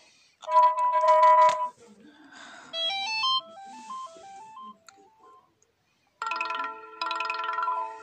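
Android 5.1 Lollipop ringtone previews played through a phone's speaker, one after another. First comes a short, loud chime on two tones, then a quick run of notes climbing step by step, and near the end a fuller chime of several tones together.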